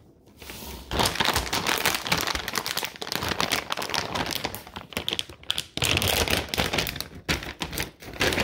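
Plastic dog-treat bag crinkling and rustling as it is opened and handled, a dense run of crackles starting about a second in.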